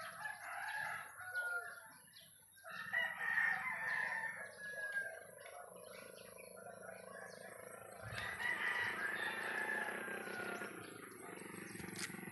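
Roosters crowing several times, long drawn-out crows one after another, with a low steady hum coming in during the second half.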